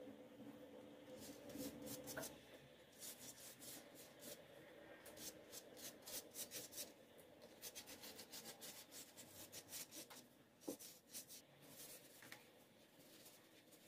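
Pastry brush dabbing and stroking melted butter onto a sheet of phyllo dough in a baking tray: a faint, quick series of soft brushing strokes.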